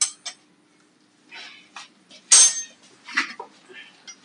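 Scattered handling noises: a few short rustles and light clinks, the loudest about two seconds in, as a plastic pipe is handled while it is being fitted to the motorcycle's front brake.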